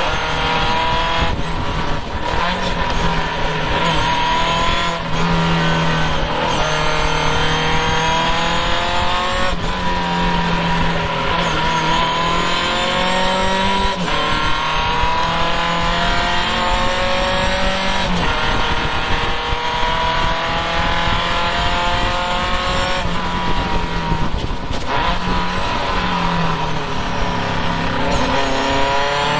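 Vintage Triumph race car's engine heard from its open cockpit at racing speed, its pitch climbing hard and then dropping back many times as the car accelerates, shifts and lifts through the corners.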